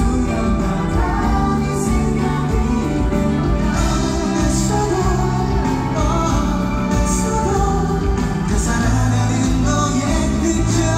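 A pop song performed live: a male voice singing into a handheld microphone over the backing music through the concert sound system, heard from the crowd.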